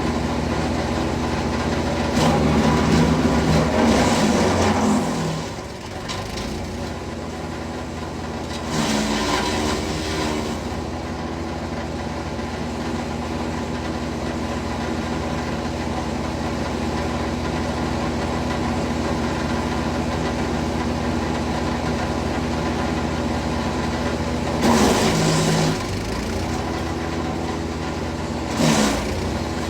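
Wood chipper's engine running steadily, with four louder, rougher surges of noise, the first lasting a few seconds, typical of material being fed through and chipped.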